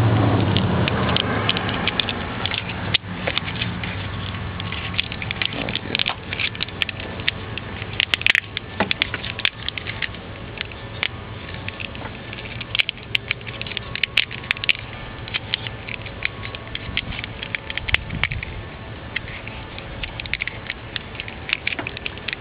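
Scattered crackles and clicks of wiring and plastic heat-resistant tubing being handled and slipped over the wires. A low hum fades out in the first couple of seconds.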